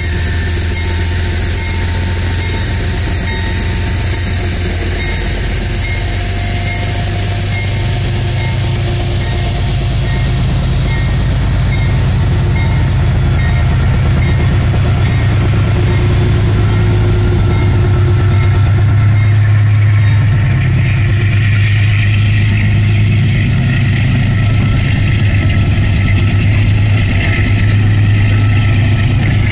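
Metro-North GE Genesis P32AC-DM diesel locomotive's V12 engine working hard as the train pulls away, a heavy low drone that grows louder and belches thick diesel smoke. From about two-thirds of the way through, a rising rumble of wheels on rail joins in as the coaches roll past.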